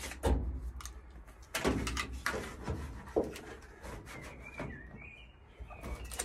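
Hands pressing and rubbing a foil-faced sound-deadening sheet onto a van's bare steel side panel. Irregular crinkles of the foil and dull knocks on the thin metal, the loudest in the first three seconds.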